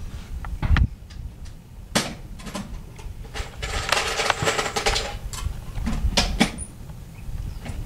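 Handling noise: several sharp clicks and knocks, with a rustling scrape about four seconds in, over a steady wind rumble on the microphone.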